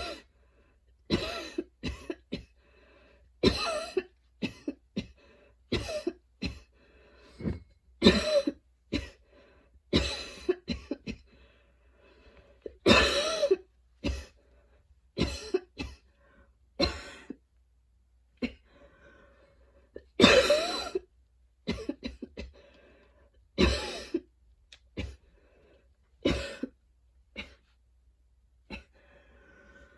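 A young woman's long, wheezy coughing fit: harsh coughs, singly or in quick clusters, every second or two, with a couple of short pauses. It was brought on by running, a grass allergy and tiredness.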